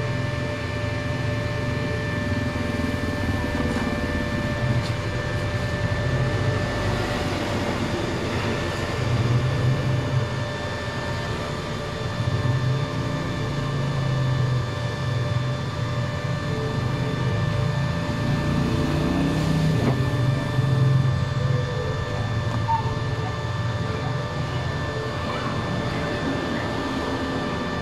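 Cooling fan of an Ingco inverter welding machine running steadily while the machine is powered on: several steady tones over a low rumble that swells and fades.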